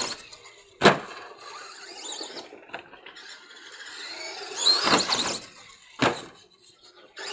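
Radio-controlled truck's motor whining as it revs up and down, swelling again about five seconds in. Two sharp crashes of the truck landing, one about a second in and a louder-than-everything-else one... no: the first, about a second in, is the loudest; the second comes about six seconds in.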